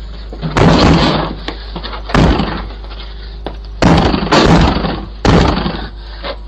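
A front door being kicked and battered in an attempt to break it down: five heavy bangs at uneven spacing, heard through a doorbell camera's microphone over its steady low hum.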